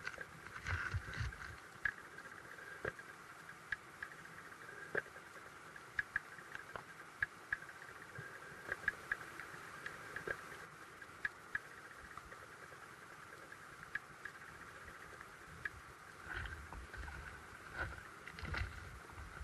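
Faint underwater sound picked up by a camera submerged in a creek: a steady hiss with irregular sharp clicks and ticks, and low rumbling thumps about a second in and again near the end.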